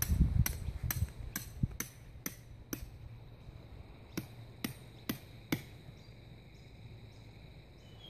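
A hammer driving a tent peg into the ground: steady sharp blows about two a second, with a short pause midway, stopping about five and a half seconds in.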